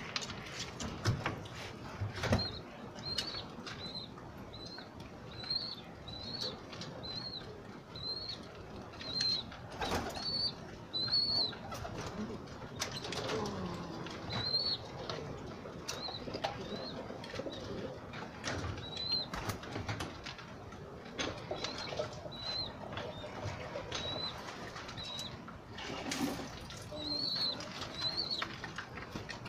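Domestic pigeons feeding on scattered grain, with pecking knocks and wing flaps. A short high chirp repeats about twice a second through the first half and comes back in patches later. A low coo sounds about halfway through.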